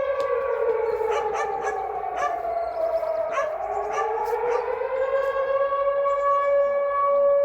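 Air raid siren wailing. One steady tone holds while a second siren tone slides slowly down and then back up, with a few short sharp sounds over it in the first half.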